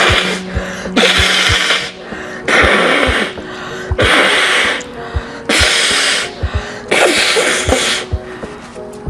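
A fit of loud sneezes in quick succession, about six, each a short breathy burst roughly a second and a half apart, over background music with a steady beat.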